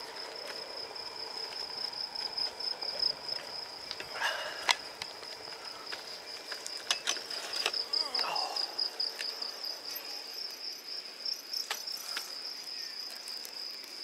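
Crickets chirping in a steady, high, pulsing trill, with a few faint clicks scattered through.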